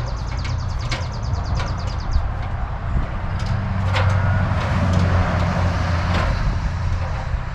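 Steady low mechanical hum, like an engine running, with a few sharp knocks and a fast high ticking trill in the first two seconds.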